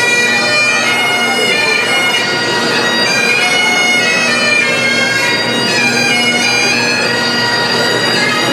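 Bagpipes playing a tune, with reed notes stepping through a melody.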